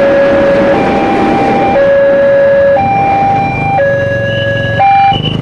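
Electronic warning siren of a railway level crossing, sounding two tones that take turns, a lower and a higher, each held about a second. Underneath is a steady rushing noise that fades about three and a half seconds in, and a brief, louder tone comes near the end.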